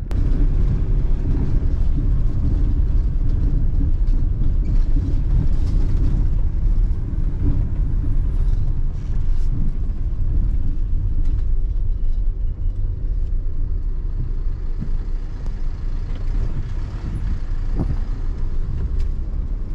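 Camper van cabin noise while driving on a sandy dirt track: steady low engine and tyre rumble, with occasional brief knocks and rattles.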